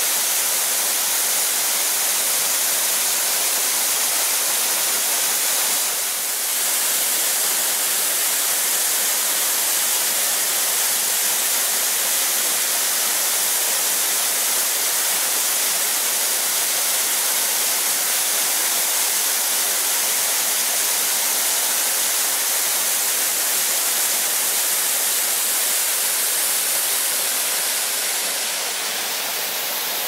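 Waterfall pouring into its plunge pool: a steady, loud rush of falling water. The sound drops slightly near the end.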